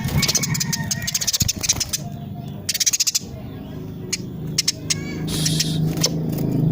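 Female Eurasian tree sparrow chattering in rapid, tightly packed bursts of chirps, twice in quick succession and again briefly later. A low rumble builds up beneath it near the end.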